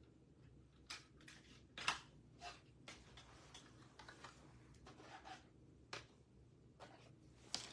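Faint, irregular clicks and light taps, about ten over several seconds, the sharpest about two seconds in, over near-silent room tone.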